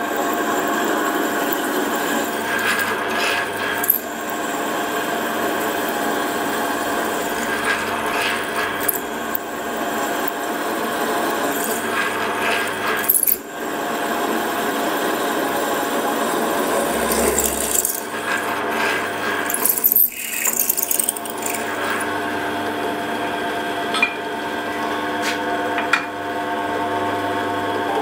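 Ajax pillar drill running with a steady motor hum while a twist drill bores holes through mild-steel valve chest covers, with scratchy cutting noise from the bit. The sound dips briefly twice, once near the middle and again a little later.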